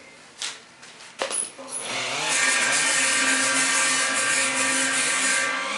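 Handheld pneumatic rotary tool on a shop air line starting up about two seconds in and running steadily at high speed, its pitch wavering slightly as the load changes. A few light clicks come before it.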